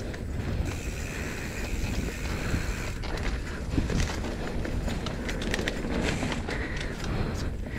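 Mountain bike descending a dirt downhill trail: a steady rumble of wind on the microphone and knobby tyres on dirt, with frequent sharp rattles and clicks from the bike.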